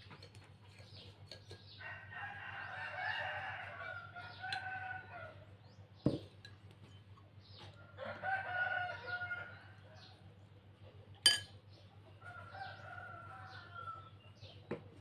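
Rooster crowing three times, each crow a drawn-out call of a couple of seconds. Two sharp clicks fall between the crows.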